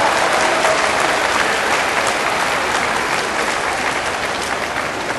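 A large sumo-arena crowd applauding at the end of a bout, the applause slowly dying down.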